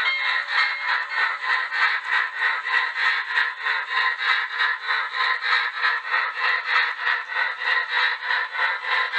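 HO-scale model freight train rolling along the track, its wheels and cars making a steady rhythmic clatter about four times a second.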